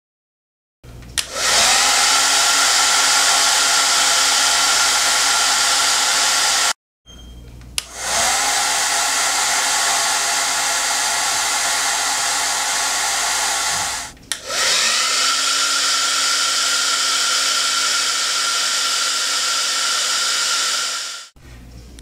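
Hand-held electric hair dryer blowing at full power: a steady rush of air with a constant whine. It comes in three stretches that cut off abruptly, and the motor's whine rises as it spins up at the start of the later two.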